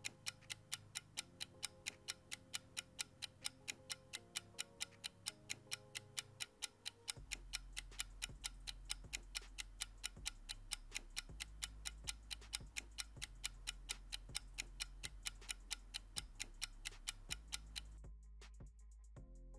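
Countdown timer sound effect: a quick, steady clock-like ticking over soft background music. The ticking stops near the end while the music carries on.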